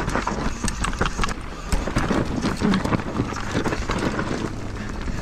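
Downhill mountain bike descending a rough trail at speed: a steady rattle of tyres, chain and suspension, with rapid knocks and clatter as the wheels hit rocks and bumps.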